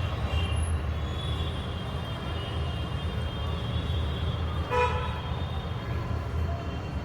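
A steady low rumble, like road traffic, with a short horn toot about five seconds in.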